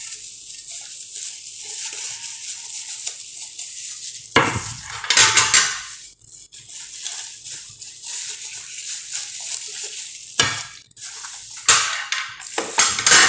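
Plastic wrapping rustling and crinkling as removable sandwich-maker plates are unwrapped and handled. The metal plates clatter against each other and the counter, loudest about four to six seconds in and again near the end.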